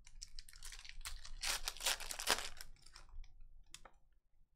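A 2020 Panini Select Football card pack's wrapper being torn open and crinkled by hand: a run of crackling rips, loudest in the middle, then a single light tick near the end.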